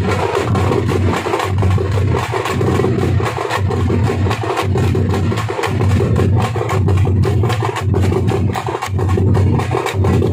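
Wooden kolattam dance sticks clacking together in rhythm over steady drumming.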